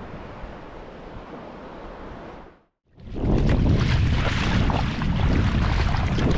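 Wind on the microphone and sea water around a kayak. The sound is a steady moderate hiss at first, then cuts out completely for a moment about two and a half seconds in. After that it comes back much louder and rumbling, with heavy wind buffeting.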